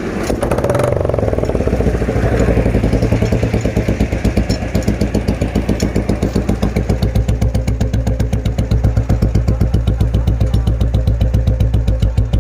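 Old Royal Enfield Bullet's single-cylinder engine idling with an even, regular thump, just after its contact-breaker points have been replaced and set. It runs a little rougher for about the first second, then settles into a steady beat.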